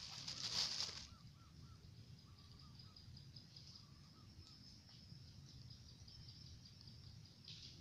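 Insects trilling steadily in the background, with a few faint chirps. A brief rustle comes at the very start.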